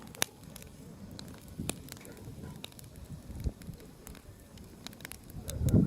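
Wood bonfire crackling, with sharp irregular pops over a low, uneven rumble of the burning. The rumble swells near the end.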